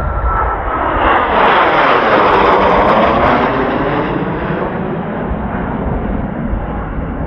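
Kawasaki T-4 jet of the Blue Impulse team flying past: a rushing jet roar that swells to its loudest about two to three seconds in, then slowly fades away. Strong wind rumbles on the microphone underneath.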